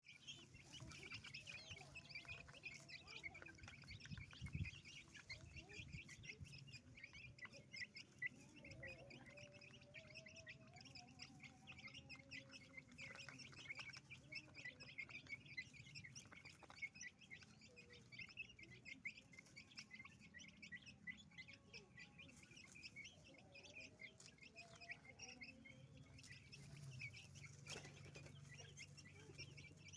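A flock of domestic chicks peeping continuously, a dense stream of short high cheeps, with scattered light taps as they peck at feed.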